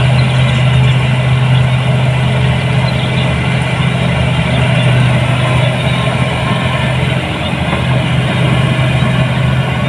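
Engine of a New Holland 8060 combine harvester running steadily with a constant low hum.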